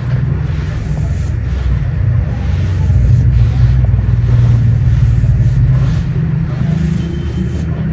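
Steady low rumble of a moving vehicle, swelling a little midway and easing off toward the end.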